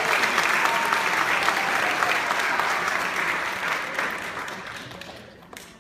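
Audience applauding, the clapping thinning and dying away over the last couple of seconds.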